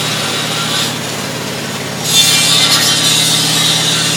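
Horizontal metal-cutting bandsaw running, its blade cutting through a stack of flat steel plates: a steady motor hum under the hiss of the cut, which grows louder about two seconds in.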